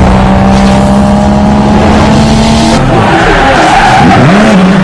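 A car with its engine running hard and tyres squealing. A steady engine drone gives way, about three seconds in, to a wavering, sliding squeal.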